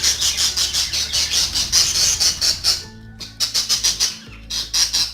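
Budgerigar chicks squawking in rapid raspy pulses, breaking off briefly about three seconds in, over background music.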